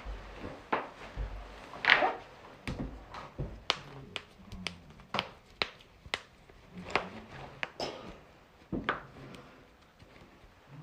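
Joints being cracked: a string of sharp pops and clicks, more than a dozen at irregular intervals, the loudest about two seconds in.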